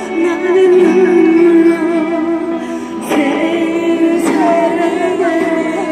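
A woman singing a slow song into a handheld microphone, holding long wavering notes over backing music.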